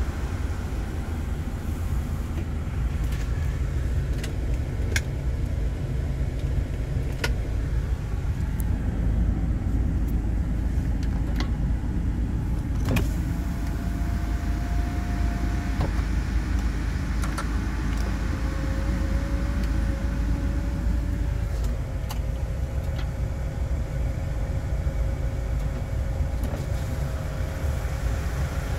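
A 2002 Hyundai Terracan idling, heard from inside the cabin, with a steady low rumble. Switch clicks and the whine of small electric motors come over it: a short whine about halfway through, then a longer, lower one that runs to the end as a power window moves.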